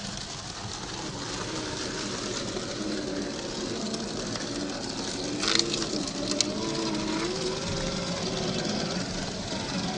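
An RC crawler's 540-size 35-turn brushed electric motor and geared drivetrain whine as the throttle is worked, the pitch wavering up and down. There are a couple of sharp clicks about five and a half and six and a half seconds in.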